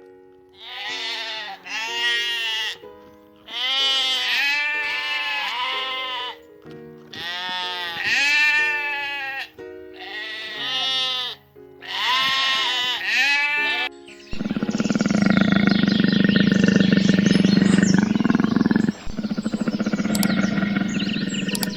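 Sheep bleating, a series of long wavering calls one after another, over background music with held notes. About two-thirds of the way through, the calls give way to a denser, louder, more continuous sound with a low hum.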